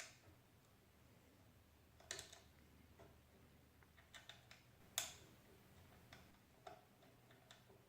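Faint, scattered clicks and taps of small screws and bracket parts being handled while lining up bolt holes, one sharper click about five seconds in.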